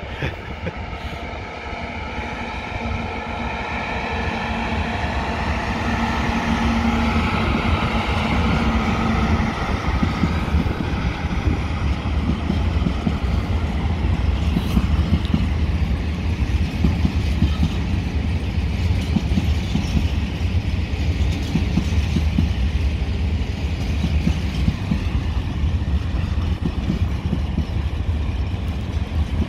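Freight train of empty flat wagons hauled by an Alstom Prima II electric locomotive (ONCF E1400 series) drawing close and passing. For the first ten seconds or so the locomotive's electric whine of several pitches sits over a rising rumble. After that the wagons roll by with a steady heavy rumble and the rapid clatter of wheels on the rails.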